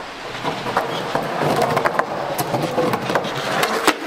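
Skateboard wheels rolling on concrete up to a waxed concrete curb, then the deck sliding along the curb edge in a backside boardslide. Many small clicks run through it, with a sharp clack near the end.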